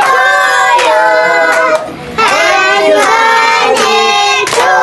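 High, child-like voices singing a song in long held notes, with a short dip in level about two seconds in.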